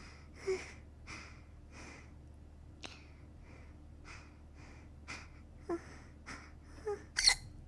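A young woman hiccuping over and over, short breathy catches of the voice about every half second to second with soft breaths between, the loudest one near the end.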